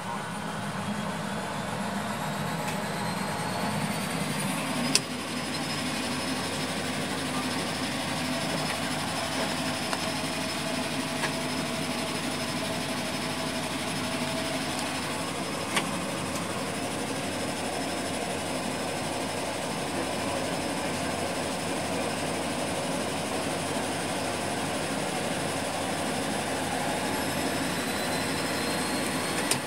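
Pratt & Whitney PT6A turboprop engines of a de Havilland Canada Twin Otter heard from inside the cabin, running steadily with propeller drone and a high turbine whine that rises in pitch over the first five seconds and then holds. A few single sharp clicks stand out, about five seconds in, around sixteen seconds and near the end.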